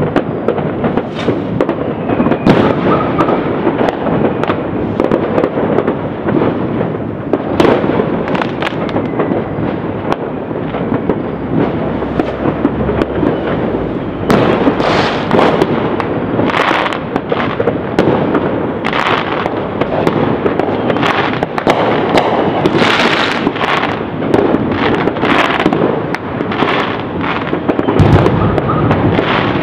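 Fireworks going off all over a city at once: a dense, constant crackle of overlapping pops and bangs, with sharper, louder bangs coming thicker from about halfway through.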